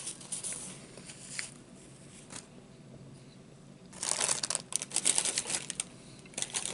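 Paper crinkling and rustling as it is handled: a few faint rustles, a short lull, then louder, denser crumpling from about four seconds in and again near the end.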